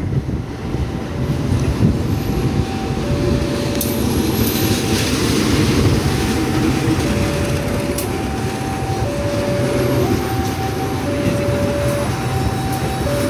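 KAI diesel locomotive and its passenger coaches passing close by, the engine running and the wheels rumbling on the rails. Over it a level-crossing warning alarm sounds two tones, high and low, taking turns about once a second.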